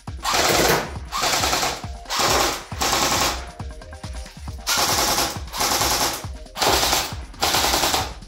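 Airsoft electric gun (AEG) firing on full auto in eight short bursts of about half a second each, with a longer pause near the middle.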